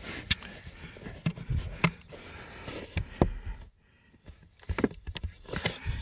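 Light scattered clicks and scrapes of hand handling: fingers working a small plastic mini blade fuse against the plastic fuse panel while lining it up to go back into its slot.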